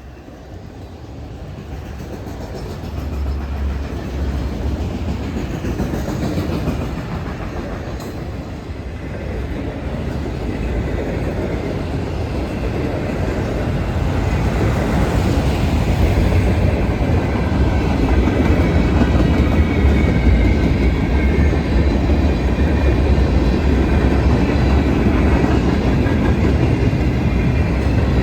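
Union Pacific freight train with diesel locomotives approaching and going by. It grows steadily louder over the first fifteen seconds or so, then holds at a steady deep rumble with the rattle and clack of wheels on the rails.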